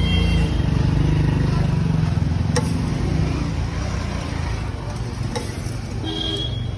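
Low, steady engine rumble of road traffic, with a metal spatula clicking sharply against a steel griddle twice, about two and a half and five and a half seconds in.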